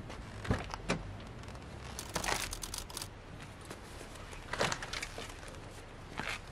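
Toyota RAV4 rear door being unlatched and opened, with a couple of sharp clicks near the start, then a large hiking backpack rustling and knocking as it is pulled out of the car.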